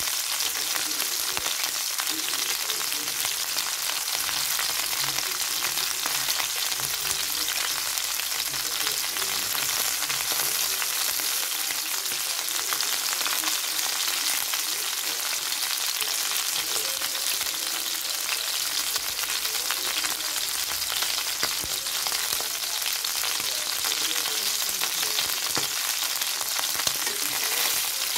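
Chicken drumsticks frying in a stainless-steel pan: a steady sizzle full of fine crackles.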